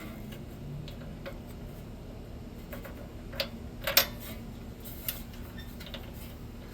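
Scattered light metallic clicks and taps as a spark plug and tool are fumbled into the cylinder head of a small single-cylinder engine, with the sharpest clicks around the middle. A steady low hum runs underneath.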